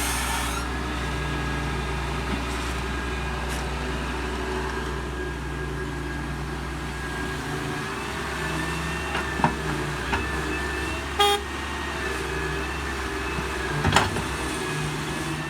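Doosan DX140W wheeled excavator running steadily with a deep engine note and a high hydraulic whine while loading soil into a tractor trolley; the deep note drops away about halfway through. Several sharp knocks in the second half, a brief toot about 11 seconds in, and the loudest knock near the end.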